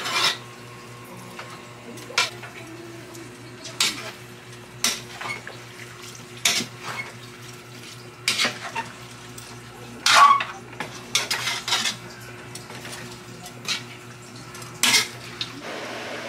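Cooking spatula clanking and scraping against a large metal pot while a big batch of bihon noodles is tossed and mixed: irregular clanks every second or two, several in quick succession a little past the middle. A steady low hum runs underneath.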